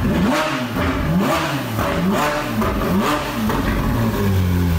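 Ferrari 458's flat-plane-crank V8, running on its stock exhaust. It is revved in about four quick throttle blips, each pitch rising and falling, then settles to a steady idle near the end.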